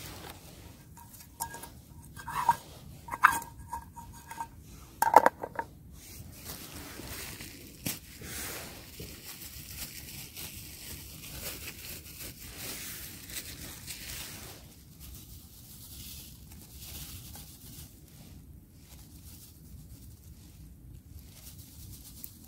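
Paper coffee filter and coffee bag crinkling and rustling while pour-over coffee is set up over camp cookware. In the first few seconds there are several sharp clinks with a short ringing tone.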